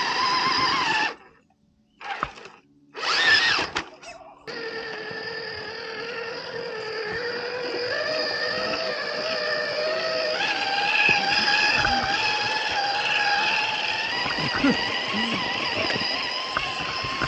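RC crawler's electric motor and gearbox whining, the pitch stepping up and down with the throttle as it crawls over rock. The sound cuts out abruptly a few times in the first few seconds.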